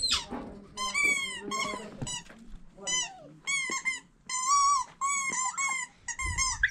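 Small dog whining in a string of short, high-pitched whines, about two a second, with a longer one near the middle.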